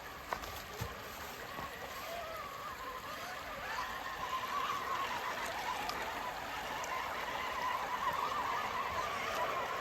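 Electric motor of an RC Toyota 4Runner scale truck whining, its pitch wavering with the throttle, over the sound of creek water being churned; it gets louder about four seconds in.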